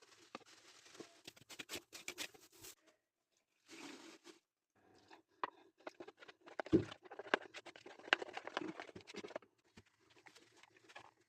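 Kitchen food-preparation handling sounds: rapid small clicks, snaps and rustles in several short bursts, cut off abruptly between them.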